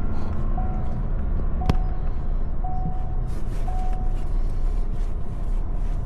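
Steady low rumble of a running vehicle, with a short beep repeating about once a second and one sharp click about two seconds in.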